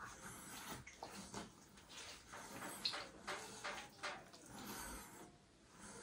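Faint water splashes and drips from rinsing during a wet shave: a run of short, irregular splashes.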